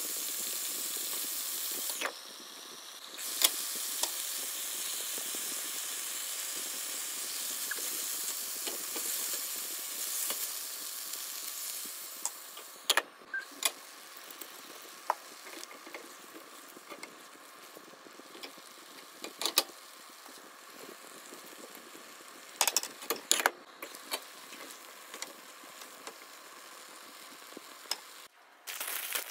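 Chicken pieces and onions sizzling in a nonstick frying pan as they are stirred with a silicone spatula, a steady hiss. About twelve seconds in the hiss gives way to the quieter bubbling of the adobo braising liquid, with scattered sharp clicks of utensil on pan.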